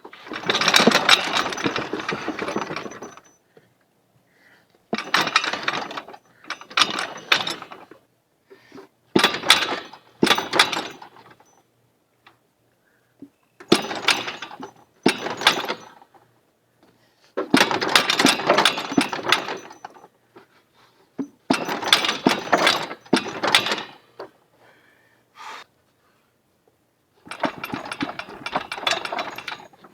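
Repeated bursts of rapid metallic clicking and rattling from hand-tool work on a lawn tractor, each burst lasting a second or two, separated by short pauses.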